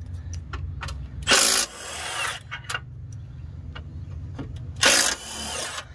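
Hand socket ratchet working loose bolts on a transmission mount: a run of ratchet clicks with two short, louder rasping bursts, about a second and a half in and near the end, over a steady low hum.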